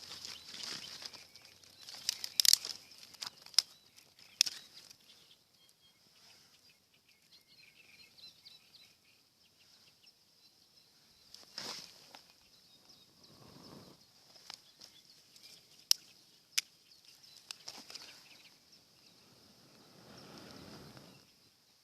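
Dry grass and twigs rustling and cracking as they are handled and snapped while a small campfire is built up over smouldering tinder, with several sharp snaps scattered through. A steady high insect chirring runs behind it.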